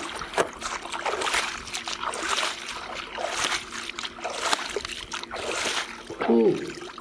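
Water splashing and trickling in irregular splashes as a toy vehicle is washed in water.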